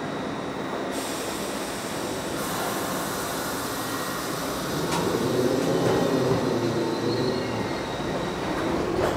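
An R62 New York City subway train of the 3 line pulling out of the station, its steel wheels running on the rails. It grows louder about halfway through as the train gathers speed.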